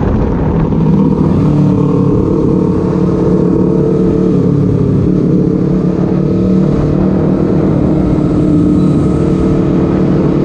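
Honda CBR250RR motorcycle engine running under way, a steady drone whose pitch steps up and down a few times as the throttle changes, with low wind rumble on the microphone.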